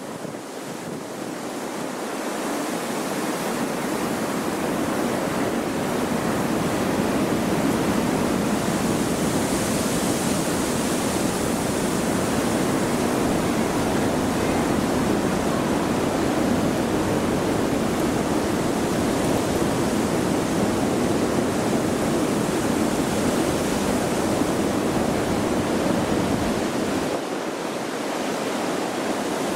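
Strong wind blowing in a steady, rushing gust. It builds over the first several seconds and eases slightly near the end.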